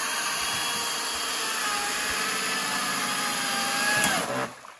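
Two-stroke chainsaw running at full throttle, cutting through a fallen log, its engine pitch wavering under load. The sound drops away abruptly near the end.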